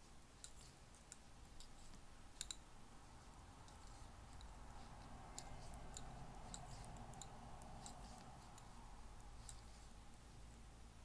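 Faint, irregular clicks of knitting needles as stitches are worked in the round.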